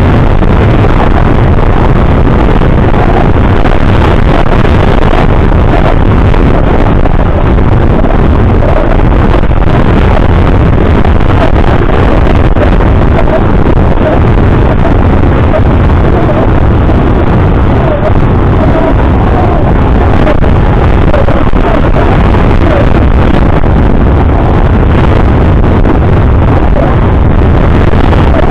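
Loud, steady rushing of wind buffeting the microphone, heaviest in the low end.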